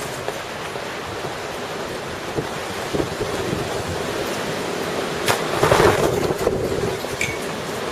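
Strong gusty wind rushing through trees, with wind buffeting the microphone. A stronger gust swells up about five seconds in.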